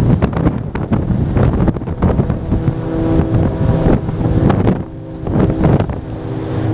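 Wind buffeting the microphone on the deck of a moving ferry, an uneven low rumble that rises and falls in gusts. A steady hum of several tones joins in about two and a half seconds in.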